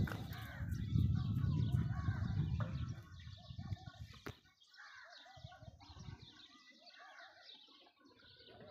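Birds chirping in the background, with a loud low rumble on the phone's microphone for about the first three seconds and a single sharp click near the middle.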